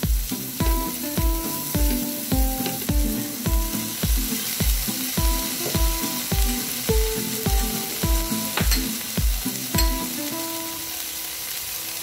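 Chopped onions, garlic, bell peppers and chilies sizzling as they sauté in a frying pan, stirred with a spatula. Background music with a steady beat plays over it and stops near the end.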